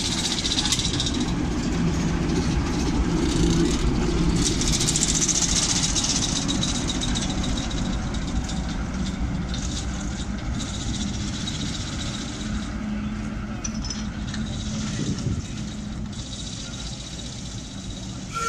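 British Rail Class 08 diesel shunter D3937, its English Electric six-cylinder diesel engine running as the locomotive moves away along the track, fading steadily.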